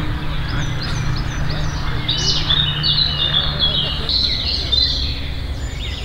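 Songbirds singing: a busy run of short chirps and whistles from several birds over a low, steady background rumble.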